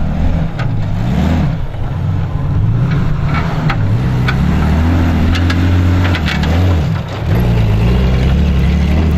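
Off-road Jeep Cherokee's engine revving up and falling back repeatedly under load as it crawls over rough dirt ground, with a short drop in revs about seven seconds in. A few sharp knocks are heard midway.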